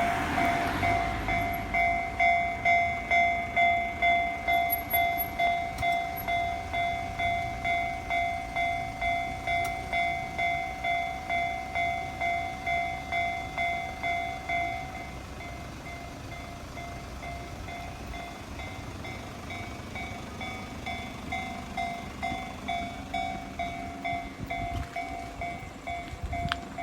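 Japanese level-crossing warning bell ringing electronically, about two strikes a second, with a passing train's low rumble underneath. The bell drops in level about 15 seconds in and pulses louder again near the end.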